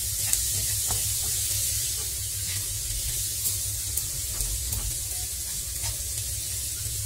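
Chopped onions, tomatoes, peanuts and ground spices sizzling in oil in a non-stick frying pan as a wooden spatula stirs them, with a steady hiss and occasional light scrapes and taps of the spatula on the pan.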